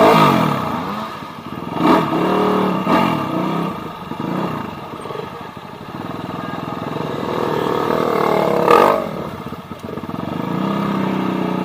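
Trail dirt bike engine revving hard in repeated bursts, its pitch jumping up and falling away. There is a loud burst at the start, two short ones about two and three seconds in, a slow climb to a peak about nine seconds in, and then a steadier run.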